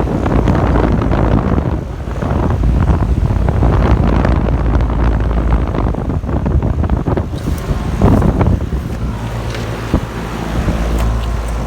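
Outdoor heat pump condensers running in cooling mode: a steady low compressor and fan hum, with gusty wind buffeting the microphone over it.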